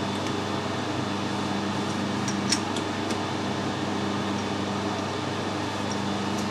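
Steady low mechanical hum, with a few light metallic clicks a little over halfway through as a chuck key works the jaws of a lathe's four-jaw chuck.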